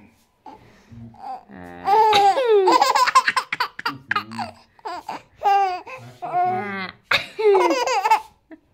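Young infant laughing in repeated bouts of high, gliding squeals and giggles, starting about two seconds in.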